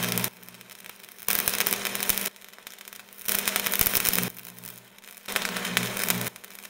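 Electrical static and buzzing hum pulsing on and off in a steady rhythm: about one second of loud crackling buzz, then about a second of quieter hiss, repeating.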